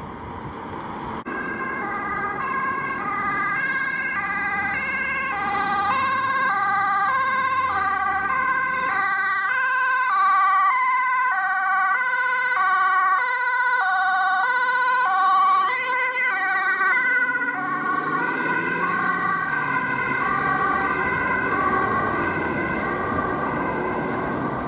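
Ambulance two-tone siren alternating between a high and a low note. It grows louder over the first half as the ambulance approaches, then holds. Low traffic and engine noise lies underneath near the start.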